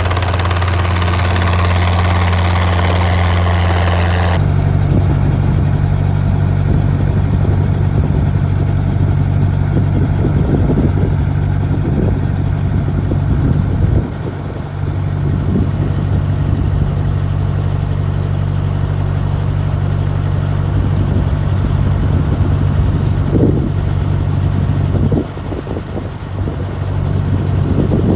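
Small helicopter in flight with its doors off: a loud, steady drone of the rotor and engine with air rushing past the open cabin. The sound shifts abruptly about four seconds in and then runs on steadily, with a few brief dips in loudness.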